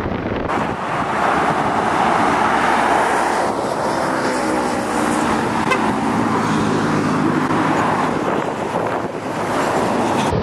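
Road traffic going by close at hand: a steady rush of car and truck engines and tyre noise, with one vehicle's engine hum standing out in the middle.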